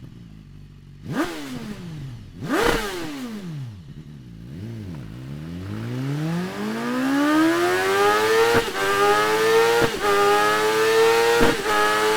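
2015 BMW S1000RR inline-four engine blipped sharply twice, revved lightly, then run up steadily to high revs and held there, with three brief dips in pitch.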